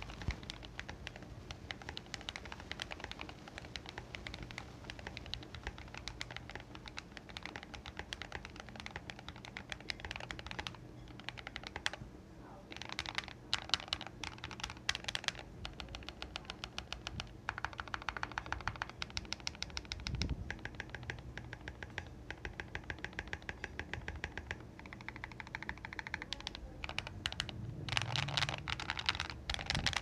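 Typing on a modded GMMK TKL tenkeyless mechanical keyboard with lubed Akko Ocean Blue tactile switches, tape-modded PCB, tuned and lubed stabilizers and MA-profile keycaps: a steady stream of key clacks with quicker runs of strokes now and then.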